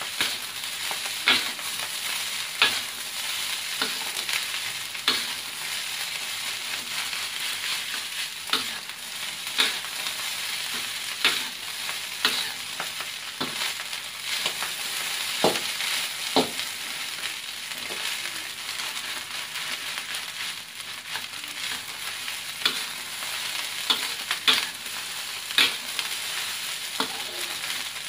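Fried rice sizzling in a hot wok while a metal spatula stirs and tosses it, with sharp scrapes and knocks of the spatula against the pan about every second or so over a steady hiss.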